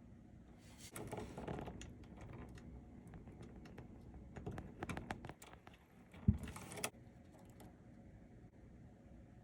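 Hands handling computer parts: rustling, a run of small clicks and knocks, and a single sharp low thump about six seconds in.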